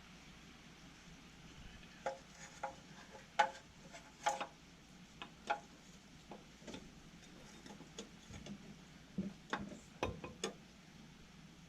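Irregular metallic clinks and clicks of hand tools on brake parts and fasteners during brake reassembly. They are scattered and sharp, some briefly ringing, and start about two seconds in.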